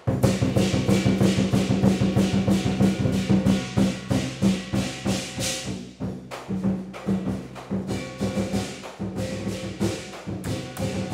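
Lion dance percussion: a drum beaten in a fast, dense rhythm with clashing cymbals. The playing builds to a peak about six seconds in, breaks off for a moment, then carries on a little quieter.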